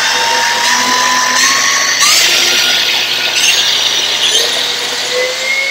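Makita XPS01 36V brushless cordless track saw running free with its blade spinning, unplunged, as the variable-speed dial is turned up. Its motor whine steps up in pitch about two seconds in and climbs again near the end.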